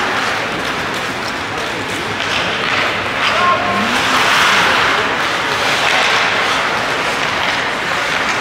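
Ice hockey rink sound: skates scraping and carving on the ice under a steady murmur of spectators' voices, growing a little louder about four seconds in.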